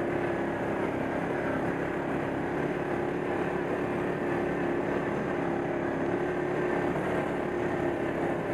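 ATV engine running steadily at cruising speed, a constant drone that holds its pitch.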